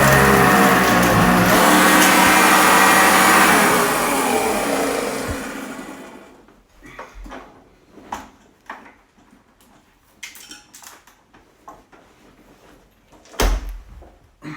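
Sanitaire upright vacuum cleaner running, then switched off about four seconds in, its motor and brush roll dying away over the next two seconds. After that there are scattered small clicks and knocks and one louder thump near the end.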